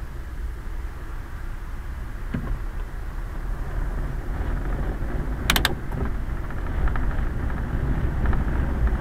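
Quest velomobile rolling on a wet road, heard from inside its closed hood: a steady low rumble of wheels and wind that grows louder as it gathers speed, with a short burst of sharp clicks a little past halfway.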